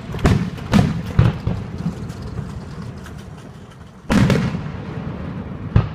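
Aerial fireworks shells bursting: three sharp bangs in the first second and a half, then a big boom about four seconds in that echoes away, and another bang near the end.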